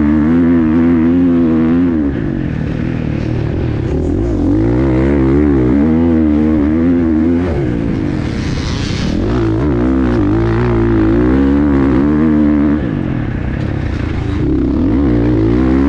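Motocross bike engine revving up and down as the throttle is worked over sand, with drops in level about two and thirteen seconds in as the rider rolls off. A brief hiss comes about eight seconds in.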